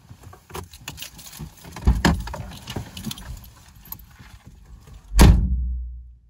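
Car keys jangling, the driver's door clicking open about two seconds in and someone climbing out with rustling clothes, then the car door slammed shut about five seconds in. The slam is the loudest sound, a hard thud with a low boom that dies away.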